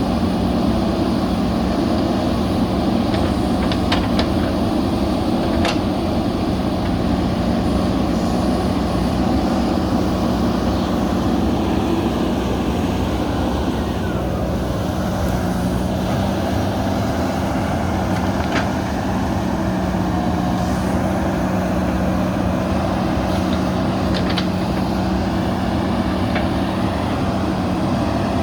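JCB backhoe loader's diesel engine running steadily under working load, with a few short metallic knocks at about 4, 6 and 19 seconds.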